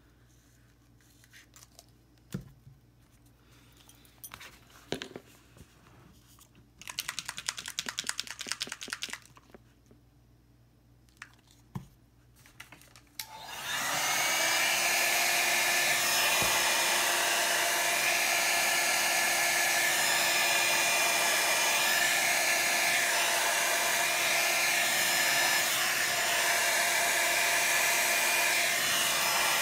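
Scattered soft taps and a couple of seconds of rapid clicking, then about fourteen seconds in a small handheld electric blower switches on with a brief rising whine and runs steadily, its fan and rushing air loud for the rest of the time.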